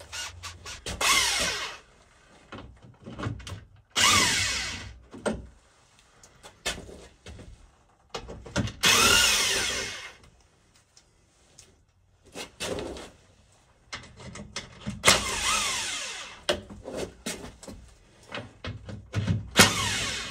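Handheld power tool with a 10 mm socket spinning out the bolts of a car's plastic underbody skid plate. It runs in several short spurts of a second or two, its pitch falling away at the end of each, with clicks and rattles of handling in between.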